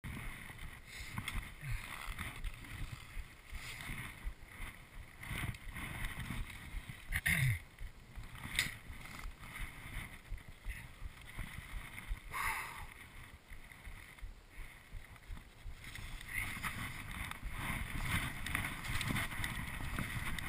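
Skis sliding and turning through powder snow with an uneven swishing hiss, mixed with wind on the microphone and a few sharp knocks. The swishing grows louder and steadier for the last few seconds as the skier picks up speed.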